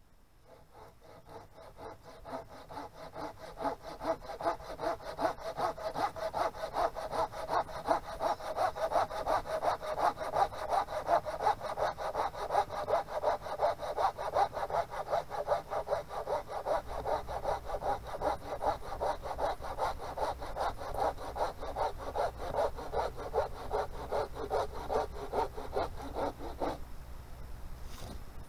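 Hand saw cutting through wood in steady, even back-and-forth strokes, cutting firewood. Faint at first, louder after a few seconds, and stopping abruptly shortly before the end.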